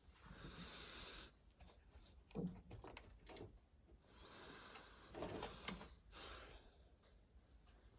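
Faint handling noises: soft rustling with a few light knocks.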